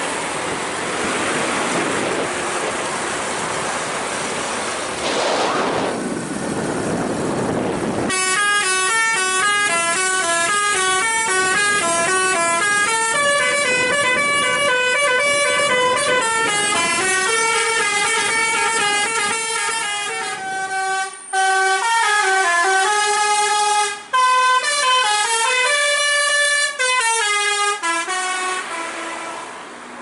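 Bus 'telolet' basuri multi-tone horn playing a tune of stepping notes for about twenty seconds, starting about eight seconds in after a steady rushing noise.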